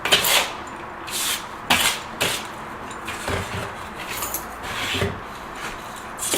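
A sanding pad rubbing grout into the joints of ceramic counter tile, in a series of short, uneven scraping strokes.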